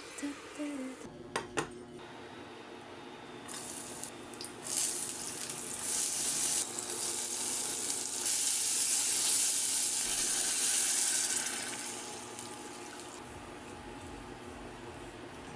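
Water running from a kitchen tap into a sink: it builds up a few seconds in, runs steadily, then tails off near the end. A few sharp clicks come shortly before it starts.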